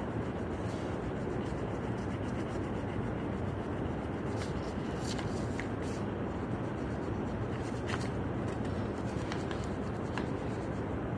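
Orange crayon scratching over paper while colouring, with a few sharper scrapes now and then, over a steady low background hum.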